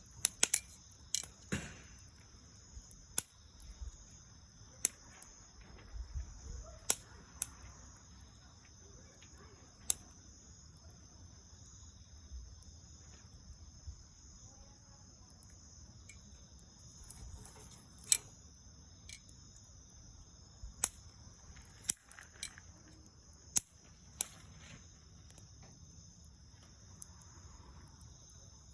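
Bonfire of dried soyogo leaves and twigs crackling, with sharp, irregular pops, a dozen or more scattered through, some close together.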